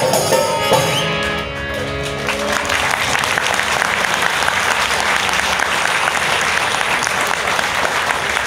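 Music plays and stops about two seconds in, and an audience breaks into applause, which carries on steadily after that.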